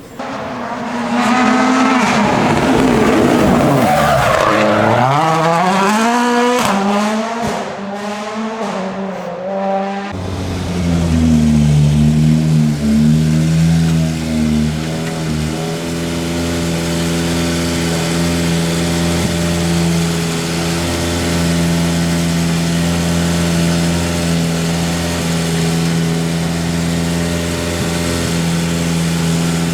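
A rally car passes at speed, its engine note climbing and dropping through gear changes over the first ten seconds. The sound then cuts abruptly to an engine running steadily at low revs.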